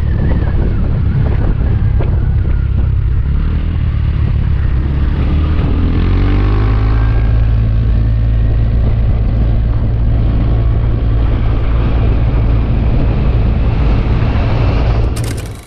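Motorbike ride heard from the rider's microphone: wind rumble and a steady engine note, with an engine pitch rising a few seconds in. The sound dips sharply for a moment at the very end.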